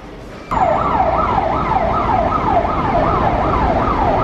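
Emergency vehicle siren in a fast yelp, its pitch sweeping up and down about two to three times a second, starting abruptly about half a second in. A steady low rumble of traffic runs underneath.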